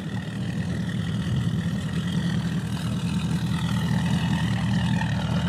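Bass boat's Mercury Pro XS outboard idling at the dock, a steady low hum with a faint thin whine above it, growing gradually louder.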